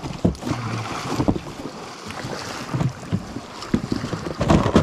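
Irregular knocks and thumps of gear being handled on a plastic sit-on-top kayak, as its deck hatch lid is swung shut, with a loud cluster of knocks near the end, over wind on the microphone.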